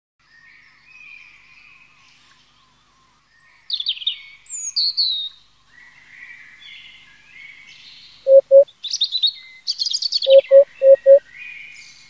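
Eurasian hoopoe calling its low, hollow 'oop-oop' notes, all on one pitch: a pair about two-thirds of the way in, then a run of four near the end. Higher chirps and song phrases of other small birds run underneath.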